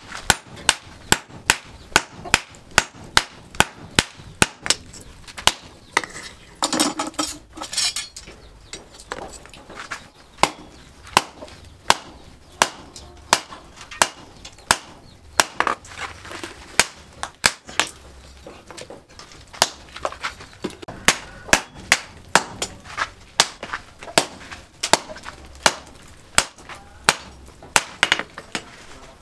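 Hand hammer striking red-hot car-axle steel on a steel post anvil while forging an axe head: a steady beat of about two sharp blows a second, broken by a pause of a few seconds about six seconds in.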